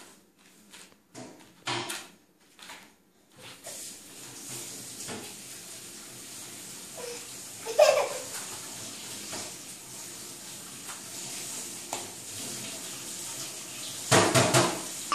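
Toddlers' short squeals and laughs, the loudest about eight seconds in and another burst near the end, over a steady rushing noise that starts about three and a half seconds in.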